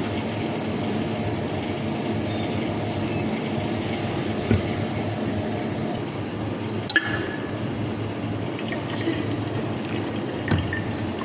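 Hot water pouring and splashing as the V60 paper filter and glassware are rinsed. Three sharp glass clinks break in, the loudest and most ringing about two-thirds of the way through.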